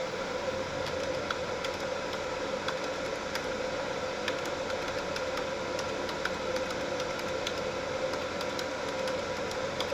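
A steady machine hum with a constant tone and faint scattered ticks.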